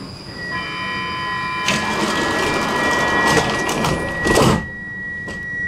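Stockholm metro train stopped at the platform: a steady high warning tone sounds while rattling and knocks build up, ending in a loud thump about four and a half seconds in as the doors shut.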